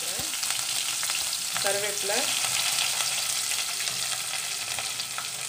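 Sliced onions sizzling in hot oil over tempered mustard seeds and urad dal while they are stirred: a steady frying hiss with fine crackles. This is the tempering stage of a sambar.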